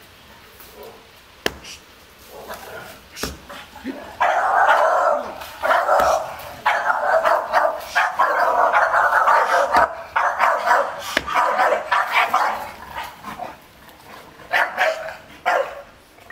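Staffordshire bull terriers barking in rapid, continuous volleys from about four seconds in, breaking into short bursts near the end: territorial barking at a stranger at the yard wall. A few sharp clicks come before the barking starts.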